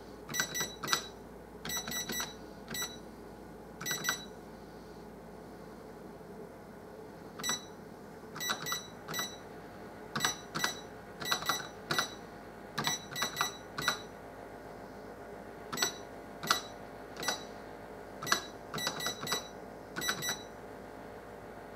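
Olivetti ECR 7700 cash register keypad beeping with each key press, as letters are keyed in by tapping the same key repeatedly: short high beeps in quick runs of two to four, broken by pauses of a few seconds.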